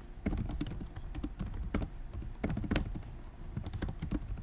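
Typing on a computer keyboard: quick, irregular keystrokes while code is entered in a text editor.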